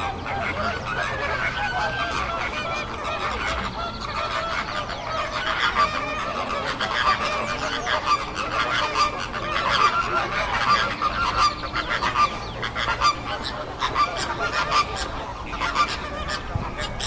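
A dense, continuous chorus of many birds calling at once, honking calls overlapping one another, with short clicks and taps scattered through.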